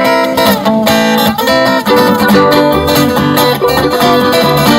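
Bluegrass band playing an instrumental intro live, led by picked acoustic guitar, with low bass notes coming in about halfway through.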